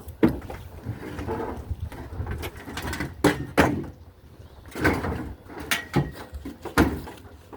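About six irregular sharp knocks and clunks, as of heavy objects being handled, over a steady low rumble.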